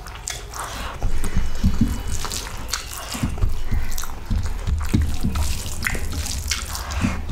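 Close-up wet eating sounds: a mouthful of rice being chewed and rice mixed with potato curry squished by hand on a steel plate, in a string of short sticky clicks and smacks.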